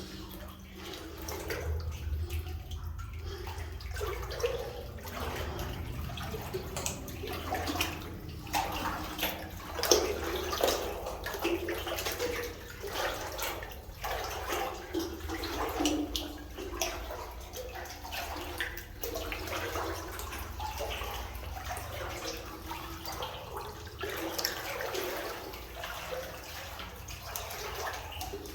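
Water sloshing and splashing as a person wades through waist-deep water in a flooded lead-mine tunnel, in uneven surges with each stride.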